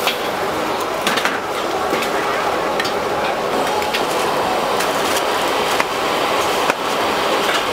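Busy street-food stall ambience: a steady hubbub of background voices with scattered clicks and knocks of utensils or cookware.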